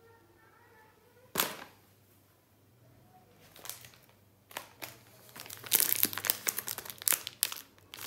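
Crinkly plastic snack wrappers being handled: one sharp rustle about a second and a half in, then a run of rapid crinkling through the second half.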